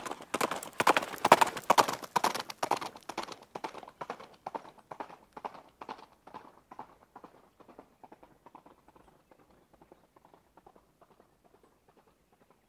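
Footsteps in ski boots crunching through soft snow in a quick, even rhythm, loudest at first and fading away over the last few seconds.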